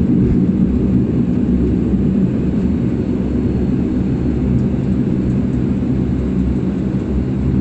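Steady low cabin drone of a Dash 8 Q400's turboprop engines and propellers running, heard from inside the cabin.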